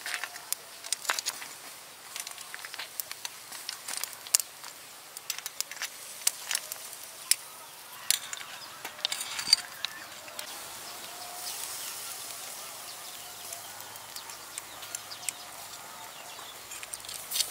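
Snails grilling in their shells over charcoal: irregular crackling and sharp clicks over a faint sizzle, with metal tongs clicking against the shells. The clicks are densest in the first half and thin out later.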